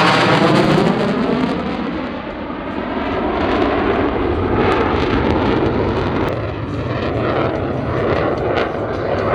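F-35A's F135 turbofan jet engine producing loud, continuous jet noise as the fighter flies a tight demo turn. It has a sweeping, phasing quality in the first second or so as the jet passes.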